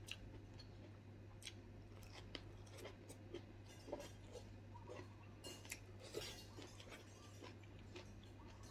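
Faint chewing as a man eats with his hands, with scattered soft clicks and taps from his fingers picking food out of coconut-shell bowls. A low steady hum runs underneath.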